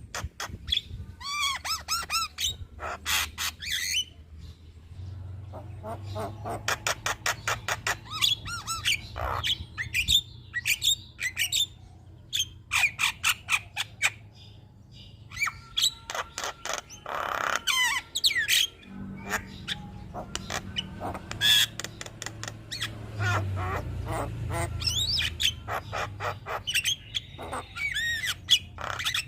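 Javan myna singing a varied, chattering song: rapid clicking runs, harsh squawks and whistled rising and falling notes, with short pauses between phrases.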